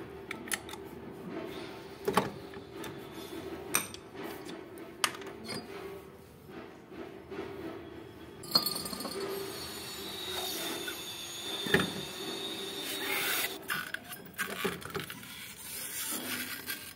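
Scattered light metal clicks and clinks as a TVS Ntorq scooter's clutch bell and clutch assembly are loosened and lifted off by hand, with a faint steady hum underneath.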